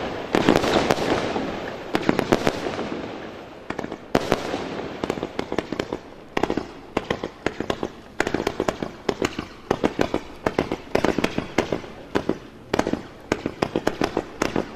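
Forbidden Love "Arch" fireworks cake firing. Heavy bursts with crackle in the first few seconds and a sharp bang about four seconds in give way to a fast, near-continuous run of sharp pops, several a second, as shot after shot launches and breaks.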